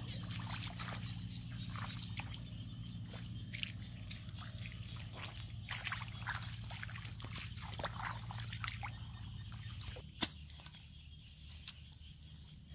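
Bare feet wading through shallow muddy water, sloshing and splashing with each irregular step, over a low steady hum. About ten seconds in, a single sharp knock; the hum drops away there and the rest is quieter.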